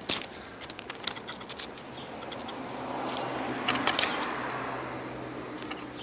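Close rustling and sharp clicks of twigs and nest material being brushed, with a soft hiss that swells and fades around the middle and a faint steady low hum from about two seconds in.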